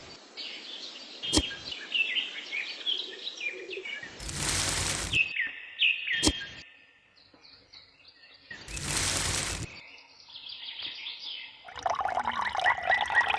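Small birds chirping, broken by two loud rushing bursts of about a second each and two sharp clicks. A denser, different sound comes in near the end.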